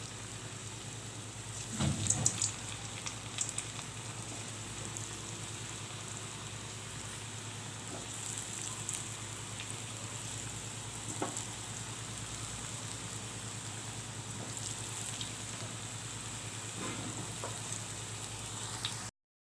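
Horse gram balls (kollu kola urundai) deep-frying in hot oil, sizzling steadily with scattered small pops. A louder burst of crackling comes about two seconds in, and the sound cuts off suddenly near the end.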